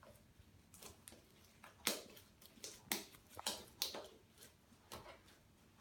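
Homemade glue-and-shaving-foam slime being kneaded and peeled off the hands, making faint, irregular sticky clicks and smacks.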